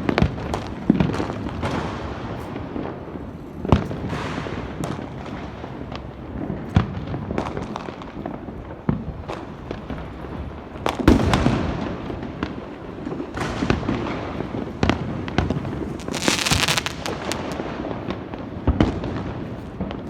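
Diwali fireworks and firecrackers going off all around: irregular sharp bangs and booms over a constant crackle of many more distant ones, with a dense hissing crackle of a shower or whistling rocket about sixteen seconds in.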